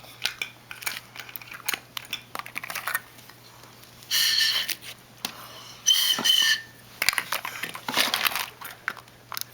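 Plastic surprise eggs, toys and candy wrappers being handled: a run of small clicks, rattles and crinkles, with two short high-pitched tones about four and six seconds in.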